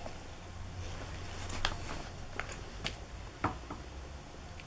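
Fireworks being handled and turned over in the hands: a few scattered light taps and rustles of the card and plastic casings, over a low steady hum.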